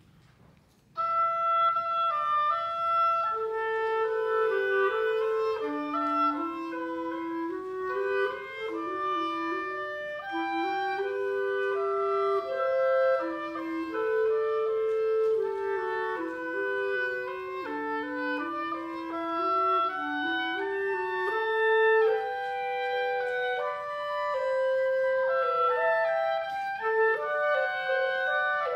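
A woodwind trio, clarinet and bassoon among its instruments, playing a classical chamber piece. Several voices move against each other in held, stepwise notes, entering together about a second in after near silence.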